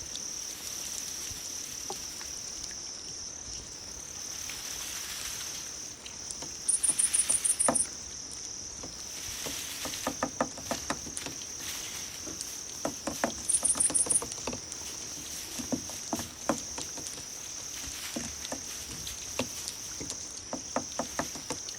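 Crickets chirping: a steady high trill throughout, broken twice by a louder, rapidly pulsed chirp about a second long, once about a third of the way in and again past the middle. Light scattered ticks come and go in the middle stretch.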